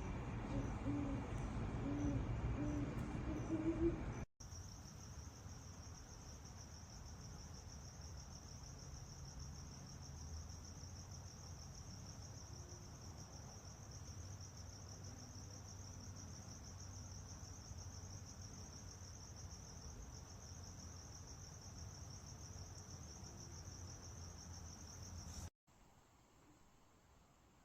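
Crickets trilling steadily in one continuous high trill, after about four seconds of a louder low rumble; the trill cuts off abruptly near the end.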